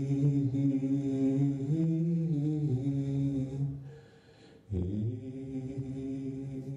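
A man singing long held low notes with no accompaniment, with a short breath about four seconds in before the next long note.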